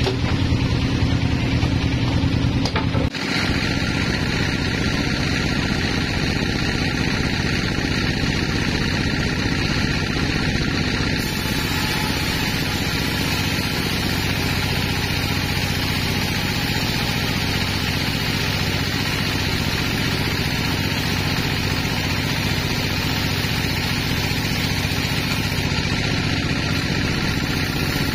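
Vertical band sawmill running steadily, its blade cutting lengthwise through a large log on the carriage, with a steady machine hum under the cutting noise. The sound changes abruptly about three seconds in.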